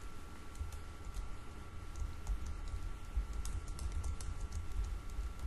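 Typing on a computer keyboard: irregular key clicks as words are typed in, over a faint steady whine.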